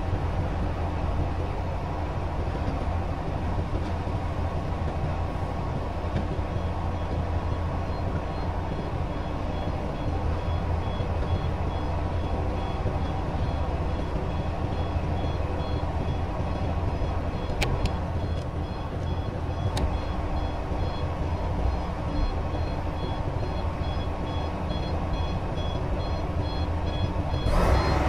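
Komatsu excavator's diesel engine running steadily, heard from the operator's cab, while a dump truck's reversing alarm beeps in a steady repeating pattern from about six seconds in as the truck backs up to be loaded. Just before the end the excavator engine suddenly gets louder.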